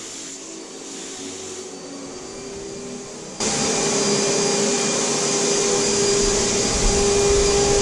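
Titan Capspray HVLP paint sprayer turbine running, a steady rush of air with a constant whine, jumping suddenly louder about three and a half seconds in.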